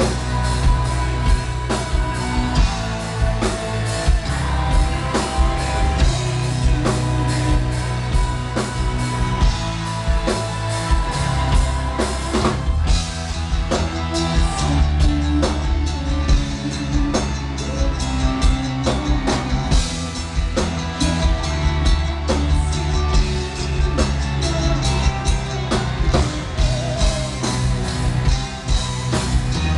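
A metal band playing live, loud and without a break: drum kit, heavy guitars and sung vocals, heard from the audience.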